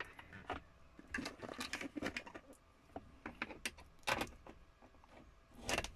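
Scattered light clicks and rattles of a plastic 12-volt two-way cigarette-lighter socket adapter being handled and pushed into a car's lighter socket, with louder knocks about four seconds in and near the end.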